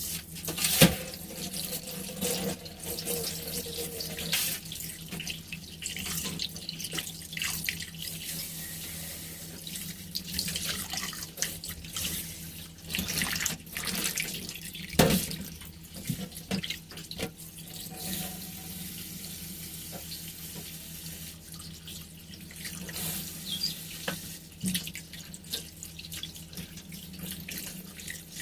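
Kitchen tap running into a sink, with scattered knocks and clatter as things are handled under the water, over a steady low hum.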